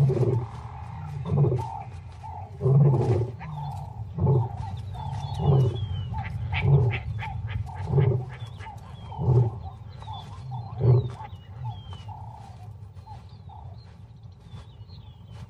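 Lion's roaring bout tailing off into a series of deep grunts, one roughly every second and a half, ending about eleven seconds in. Faint bird chirps sound above it.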